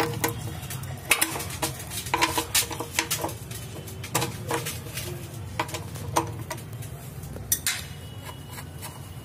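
Irregular metallic clicks and clinks of a 30 mm socket wrench working loose the oil-pan drain plug of a Mercedes ML 250 CDI, over a steady low hum.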